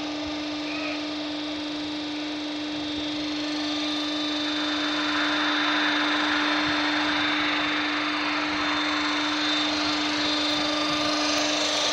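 Steady machinery hum under a broad noisy rush, which swells about four seconds in.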